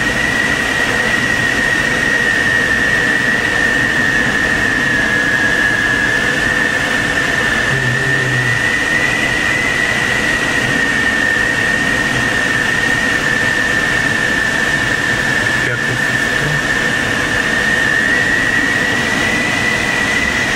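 Steady rush of air around the cockpit of an SZD-50 Puchacz glider in flight, with a continuous high tone that drifts slightly in pitch.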